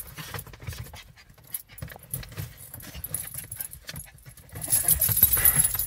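Rustling and handling noise with light metallic jingling as a small dog's harness is put on while the dog moves about on a car seat. The jingling and rustling get louder about three quarters of the way through.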